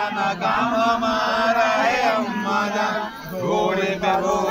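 Men's voices chanting together in long, held phrases.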